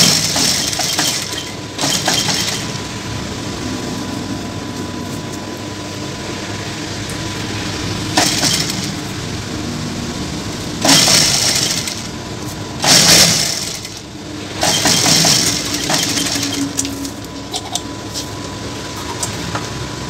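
Industrial lockstitch sewing machine stitching a fabric strip, running in several short spurts over the steady hum of its motor.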